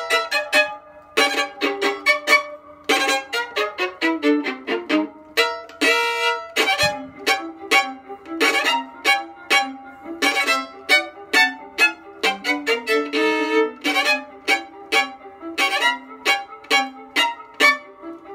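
Solo violin, bowed, playing a quick tune of short, separate notes.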